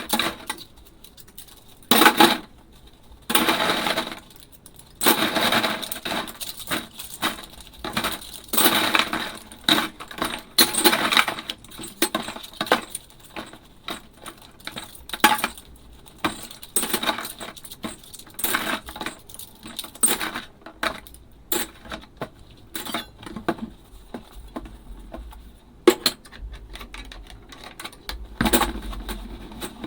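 Dishes being washed by hand in a sink: many irregular clinks and knocks of ceramic and glass, with several stretches of rushing noise lasting a second or two, mostly in the first half.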